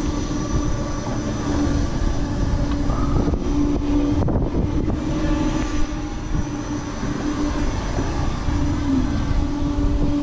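Wind buffeting the microphone over a steady mechanical hum from a Looping Alois flight-ride gondola, a joystick-steered biplane on a rotating arm, as it swings and turns. The hum breaks off briefly a few times and dips once near the end.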